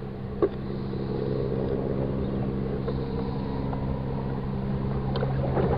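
A steady motor hum holding one even pitch, with a few light knocks as the plastic bait-bucket lid is handled, one about half a second in and a couple near the end.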